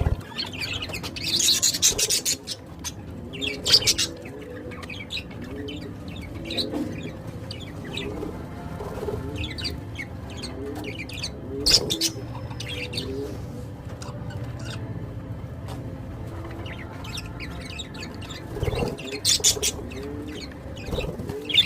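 Birds chirping repeatedly, with many short, high calls that come loudest about two, four and twelve seconds in. A lower call repeats steadily underneath.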